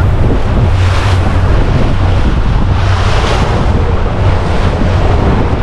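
Boat under way at speed on a 300 hp outboard: wind buffeting the microphone and water rushing in the wake over the outboard's steady low drone, with gusts swelling about a second in and again around three seconds.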